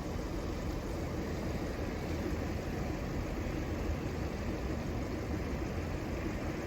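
Diesel multiple unit idling steadily at the platform, a continuous low engine rumble with a hiss over it.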